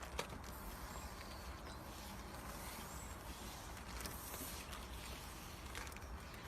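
Ice being cleared off a car: faint crunching over a steady low hiss, with a couple of sharp cracks, one just after the start and one about four seconds in.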